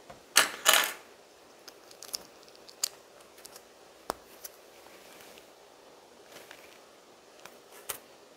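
Small plastic LEGO bricks being handled and pressed together: two short rattles of pieces about half a second in, then scattered sharp clicks.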